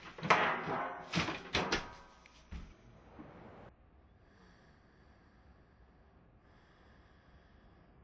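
A quick series of loud knocks and thumps through the first three seconds, then quiet with a faint steady hum.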